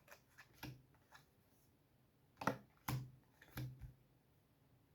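Playing cards being handled and set down on a table: a few soft, faint taps and flicks, the clearest pair about two and a half and three seconds in.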